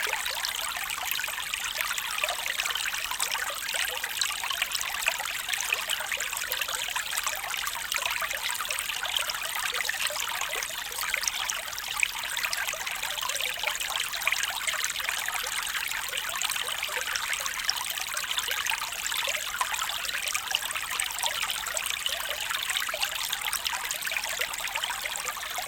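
A small stream trickling and babbling steadily, with a fine splashing patter and little low rumble.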